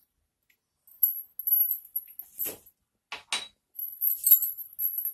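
Kitchen handling sounds: light scattered clicks and clinks as spices are worked into mashed boiled potato in a plastic bowl, with a few short louder knocks about two and a half and three and a half seconds in.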